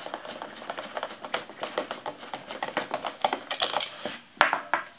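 Threaded battery cap of a Boka cave lamp being unscrewed by hand: a run of quick, irregular clicks and ticks from the cap's threads, with a louder clatter about four and a half seconds in as the cap comes free.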